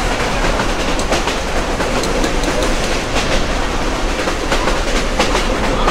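Passenger train running along the track: a steady rumble of the coaches with irregular clacks and knocks of the wheels over the rail joints.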